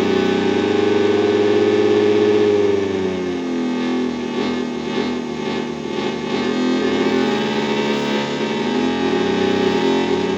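A small fan motor, spun by a second fan's airflow and wired straight into loudspeakers, plays as a loud, distorted electronic hum of several stacked pitches, a strange science-fiction-like turbo sound. Its pitch sinks about three seconds in, climbs back, and starts falling near the end.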